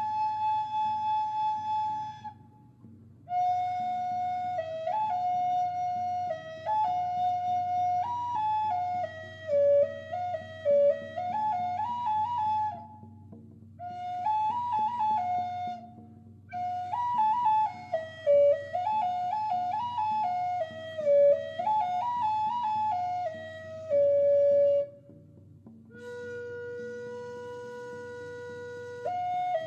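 High-pitched hummingbird flute playing a slow melody that steps up and down, in phrases broken by short pauses for breath. It settles on one long held lower note near the end, with a faint low hum underneath throughout.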